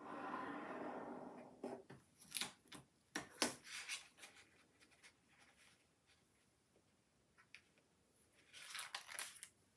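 Craft knife drawn along a ruler through a thin brown wax sheet on paper: a scraping cut stroke lasting about a second and a half, then a few sharp clicks and taps as the ruler and knife are handled, and a brief rustle near the end.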